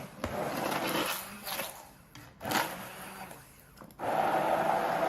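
Handheld immersion blender switching on about four seconds in and running steadily as it purées butternut squash soup in the pot, after a couple of knocks in the first seconds.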